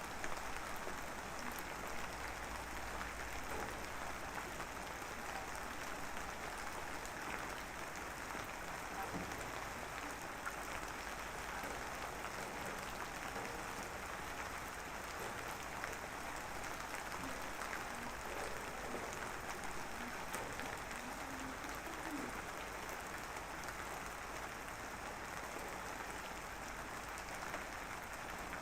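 Light drizzle falling steadily: an even hiss of fine raindrops with scattered small ticks.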